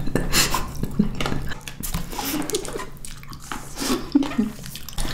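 Close-miked, wet chewing of juicy blackberries: irregular squishing and mouth clicks.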